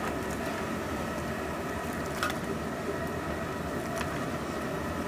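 Rice and spiced liquid boiling in a large aluminium biryani pot: a steady bubbling rumble, with a couple of light clicks about two and four seconds in.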